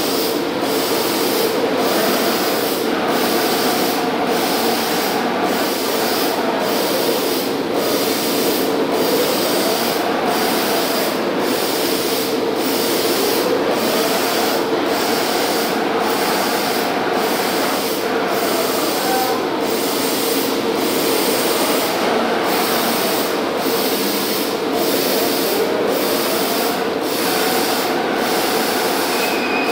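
Laser cutting machine cutting aluminium sheet: a loud, steady hiss of the cutting head and its gas jet, dipping briefly in its upper part a little more than once a second, with a faint whine that rises and falls.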